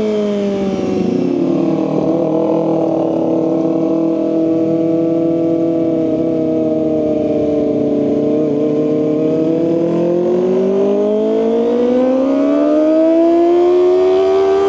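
Kawasaki ZX-25R SE's 250 cc inline-four, with an Austin Racing aftermarket exhaust, on the move. The revs drop early on, hold steady at a cruise through the middle, then climb in a long, smooth rise as the bike accelerates.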